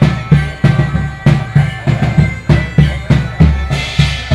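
Medieval-market band music: bagpipes holding sustained tones over a steady drum beat of about two to three hits a second.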